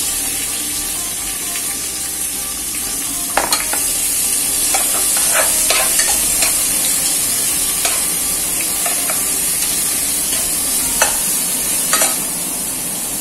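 Sliced onions frying in hot oil in a pressure cooker: a steady sizzle, with a steel spoon now and then scraping and clinking against the pot as they are stirred.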